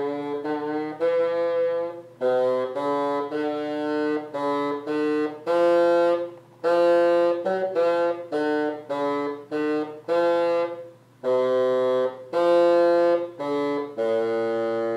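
Bassoon playing a slow line of separate notes, most held about half a second to a second with short breaks between them, the last one held longer near the end.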